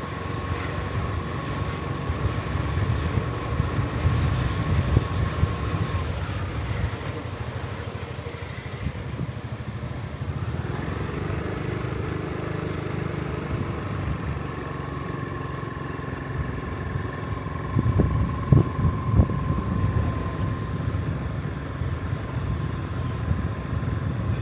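Steady running noise of a motor vehicle, a low rumble with a thin steady whine over it, and a few knocks about three-quarters of the way through.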